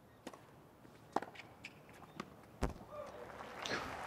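A tennis ball being bounced on a hard court: a handful of sharp separate knocks, the loudest about a second in, one with a low thump about two and a half seconds in.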